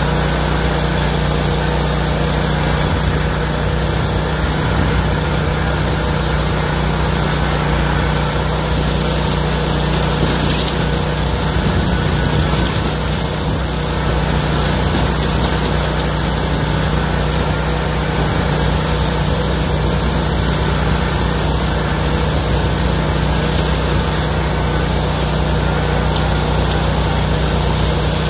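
Riding lawn mower engine running steadily at a constant speed while mowing, with no change in pitch.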